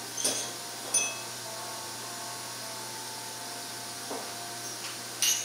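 Metal surgical instruments (needle holder and suture scissors) clicking and clinking three times, at the start, about a second in and louder near the end, over a steady hiss.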